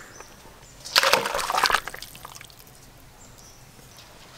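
Thin fish curry poured from a metal karahi into a steel bowl: one splashing, sloshing pour lasting about a second, about a second in.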